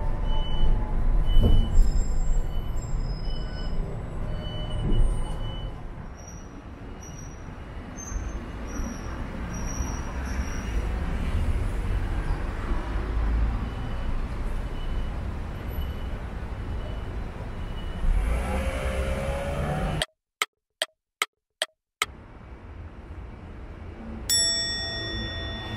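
City bus interior: low engine rumble with a high electronic beeping signal repeating about every half second. This gives way to steadier street traffic running past.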